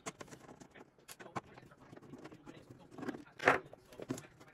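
Light clicks and taps as a screwdriver and hands work on a sheet-metal equipment housing, removing the screws from its back cover. About three and a half seconds in comes a louder, brief handling noise as the cover is gripped to be lifted.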